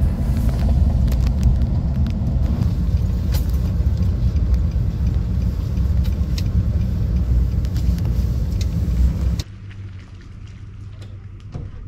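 Car driving on a bumpy, wet road, heard from inside the cabin: a steady low rumble of road and engine noise with scattered knocks and rattles. About nine and a half seconds in it cuts off suddenly to a much quieter low hum.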